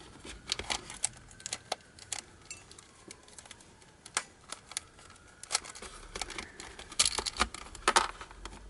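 Hard plastic pieces of a Dayan 16-axis twisty puzzle clicking and snapping as they are prised apart with a small metal screwdriver. The sharp clicks come irregularly, with the loudest pair about seven and eight seconds in, as a piece comes free and lands in a plastic tray.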